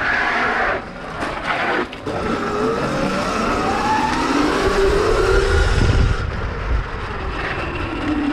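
Sur-Ron electric dirt bike, upgraded to 72 volts, ridden fast: the motor's whine glides up in pitch as it accelerates a few seconds in, then drops lower, over a steady rush of wind and tyre noise.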